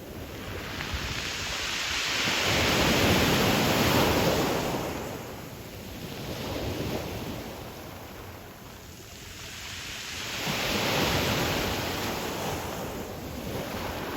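Sea waves breaking and washing up a pebble shore. The sound comes in slow surges: a large one a few seconds in, a smaller one in the middle, and another large one near the end.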